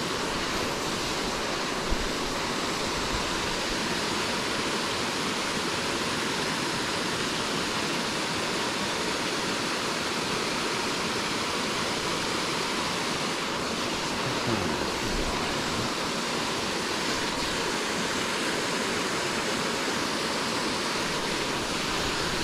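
Small waterfall and creek water rushing steadily into a pool, an even constant noise, with one brief tap about two seconds in.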